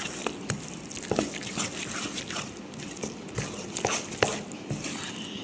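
Metal spoon stirring thick semolina batter with chopped vegetables in a stainless steel bowl: a squelchy scraping with irregular clicks of the spoon against the steel.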